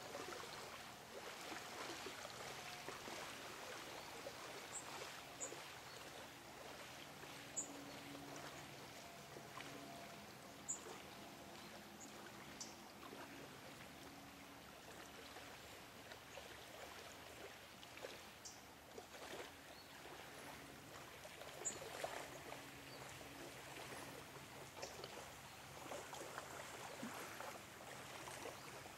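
Small lake waves lapping quietly against the shore, a soft splashing and trickling, with a few short high chirps now and then.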